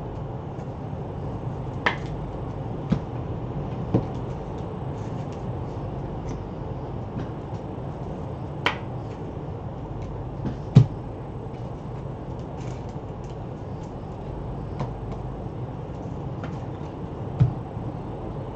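A handful of sharp knocks and clicks, about six, spread across a steady low hum: card boxes and packs being handled on a tabletop. The loudest knock comes a little past the middle.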